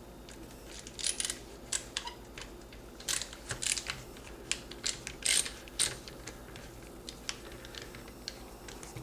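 Screwdriver tightening the lever screw on a Marlin 336 lever-action rifle: scattered metallic clicks and scrapes, thinning out after about six seconds.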